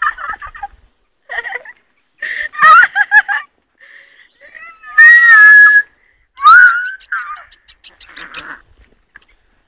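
Labrador puppies yelping and squealing as they play, in short high-pitched yelps with one longer, loud squeal about halfway through.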